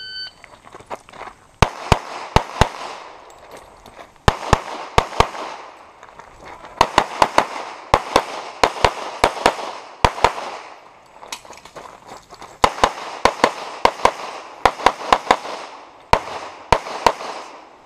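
A shot timer beeps briefly at the start, then a pistol fires string after string of quick shots, mostly in pairs and small groups with pauses of a second or so between, each shot with a short echo. The paired shots are typical of a USPSA shooter putting two rounds on each target as he moves through a stage.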